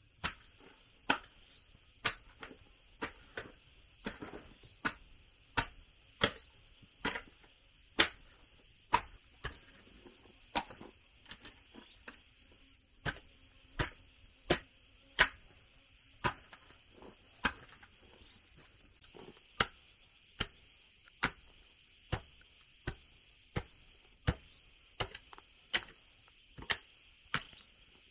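Sharp knocks of a tool striking wood, repeated at a steady pace a little faster than once a second, with a few softer strokes around the middle.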